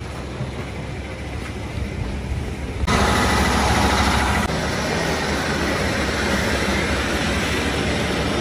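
Busy street ambience with a vehicle engine running, a steady low rumble that turns suddenly louder and fuller about three seconds in.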